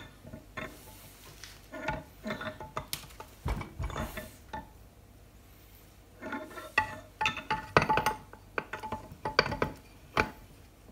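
Metal clinks and knocks as a gear shaft with its spur gear is handled and fitted into a Boxford lathe headstock, in scattered clusters of sharp clinks with a duller knock about three and a half seconds in.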